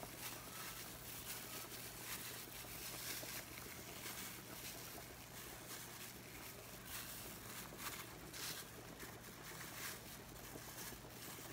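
Faint crinkling of a thin plastic food-handling glove as cheese is crumbled and scattered over pizza toppings, a few brief rustles over a steady hiss and low hum.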